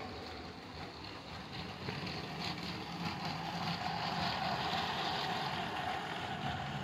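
Battery-powered Lego City trains with Powered Up motors running on plastic track: a steady motor whine with light wheel clatter that grows louder about two seconds in, as the trains pass close.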